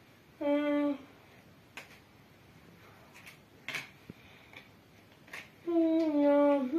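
A child humming: one short held note about half a second in and a longer one near the end. In between come a few faint clicks and taps of trading cards being handled.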